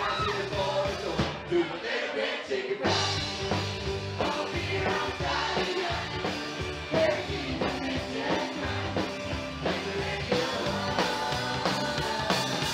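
Live band playing a country-rock song on drums, bass and guitars. It starts sparse, and the drums and bass come in together about three seconds in, after which the full band plays on.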